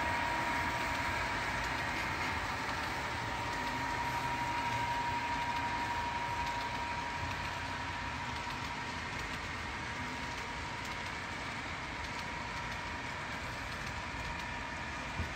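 Model train of loaded flatcars rolling past on the layout's track, a steady running noise with a high whine that fades about halfway through.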